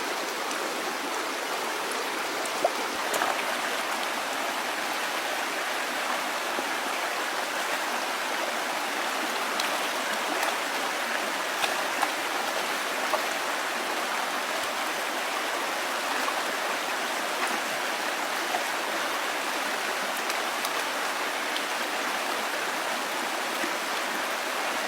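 Steady rush of running water, with a few faint ticks and drips scattered through it.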